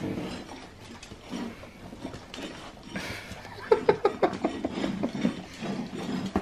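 Australian cattle dogs licking ceramic plates clean, a rapid run of tongue laps with the plates clinking and scraping on the hard floor, louder and quicker from about halfway through.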